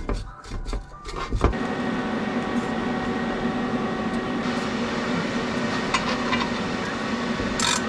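MIG welder running steadily with a hum and crackling hiss, welding a rod onto a broken stud in an oil pan so the stud can be extracted. A few clicks and knocks come before the welding starts, about a second and a half in.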